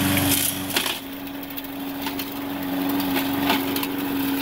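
Briggs & Stratton 125cc single-cylinder engine of a walk-behind gas push mower running steadily under load while cutting grass, with scattered sharp ticks over its even hum.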